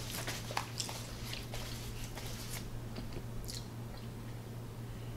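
Faint chewing and small handling noises: scattered soft clicks and rustles over a steady low hum.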